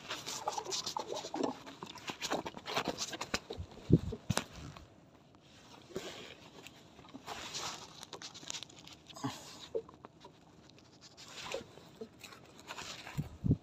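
Scattered small clicks, rustles and light wet patter of hands handling a fishing hook and line over a bucket of wet green moss bait.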